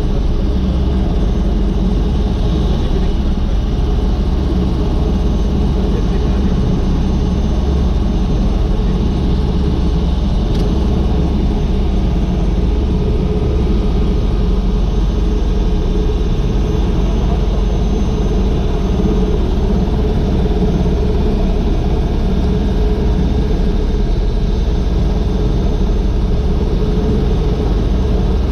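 Agusta AW119 helicopter's Pratt & Whitney PT6B-37A turboshaft and main rotor running steadily at idle on the ground, heard from inside the cockpit as a loud, even rumble with a steady hum.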